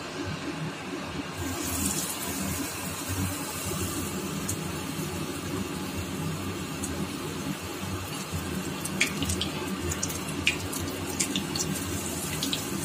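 Batter-coated pumpkin flowers sizzling as they deep-fry in hot mustard oil. The sizzle brightens about a second and a half in as the first one goes in, and sharp pops and crackles come from about nine seconds on.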